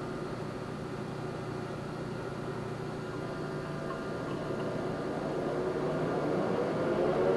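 Poreba TPK-90 engine lathe's geared headstock and main drive running. From about four seconds in, its whine rises steadily in pitch and grows louder as the spindle speeds up to a higher speed.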